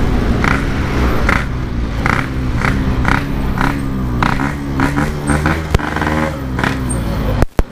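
Yamaha RX-King two-stroke single-cylinder engine running through a standard-style 'belek' exhaust while riding, its pitch rising and falling with the throttle. The sound cuts out briefly near the end.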